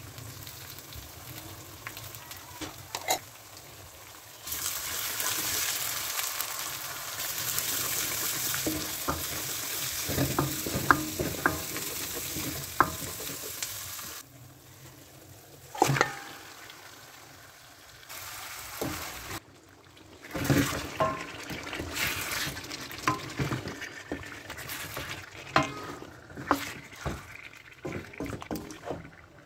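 Garlic and ginger paste sizzling in hot oil in a karahi while a spoon stirs and scrapes against the pan. Later, chicken pieces fry and are stirred, with sharp clicks and scrapes of the spoon. The frying hiss is loudest in the first half.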